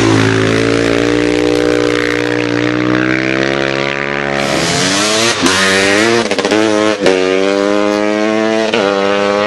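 Racing motorcycle engine at high revs, held fairly steady as the bike corners. Then, after a cut, another motorcycle climbs hard through the gears, its pitch rising and dropping back at each of several upshifts.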